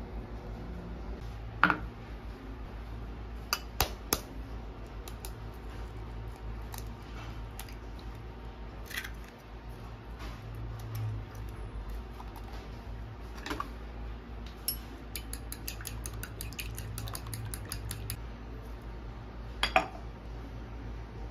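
Fork beating eggs in a ceramic bowl: a run of quick metal-on-ceramic clinks in the second half, with a few separate clinks and knocks of dishes and utensils being handled before it, over a steady low hum.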